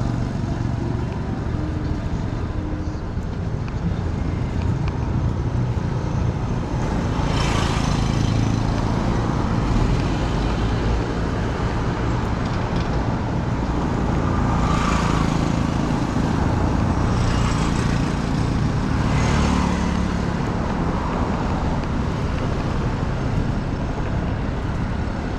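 Busy street traffic: a steady rumble of vehicle engines and tyres, with three louder vehicles going past in the middle stretch.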